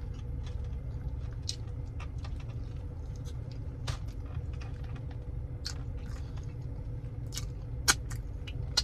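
Small clicks and crackles of someone eating and handling food, scattered irregularly, with sharper ones about four seconds in and near the end, over a steady low hum.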